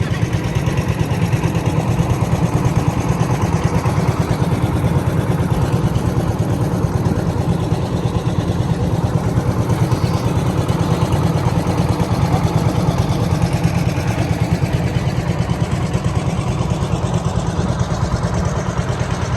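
Boat engine running steadily at a constant speed, a loud, fast, even throb.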